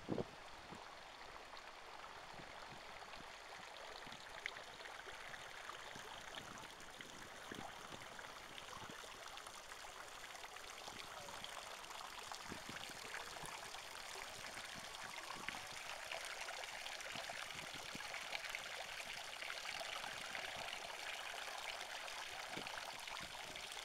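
Water pouring and splashing from a tiered stone garden fountain: a steady rush that grows gradually louder.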